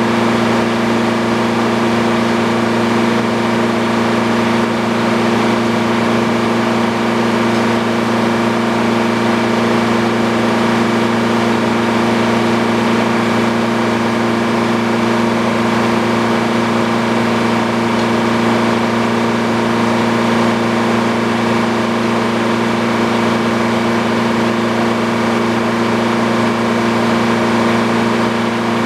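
Old Frick sawmill's power unit running at a steady speed: a loud, even machine hum with several fixed tones and no change in pitch or load.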